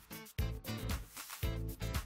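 Background music with a steady beat: a heavy bass note about once a second, with lighter beats between.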